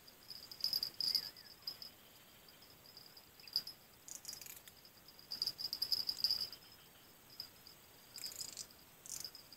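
Insects trilling in a steady, high-pitched chorus that swells louder several times, with a few short scratchy noises about four and eight seconds in.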